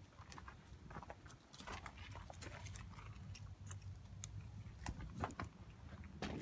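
Footsteps crunching over dry dirt and twigs: irregular crackles and clicks over a low steady rumble.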